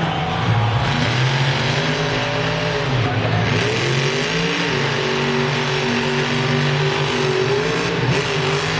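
Grave Digger monster truck's engine revving hard as the truck drives across the dirt, its pitch rising and falling in the first few seconds, then holding at a steady high pitch for the rest.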